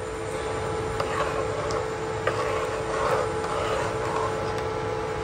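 Steel spoon stirring and scraping thick, watery mashed vegetables in a metal pot, with a few light clicks of the spoon against the pot, over a steady hum.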